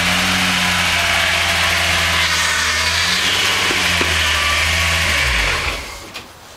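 VR6 engine in a Mk1 VW Golf idling steadily. The owner says the engine is clattering and suspects the timing chains; he also says the power-steering pump is noisy because it has not yet been filled with fluid. About five and a half seconds in, the engine is switched off and runs down.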